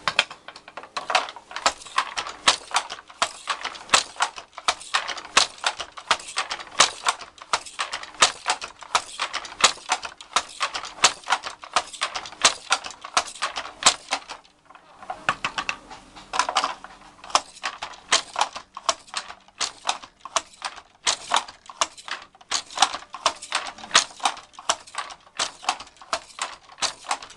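Wooden handloom clacking steadily as it weaves: the shuttle shooting across and the beater knocking each weft thread home, a few sharp knocks a second, with a brief pause about halfway through.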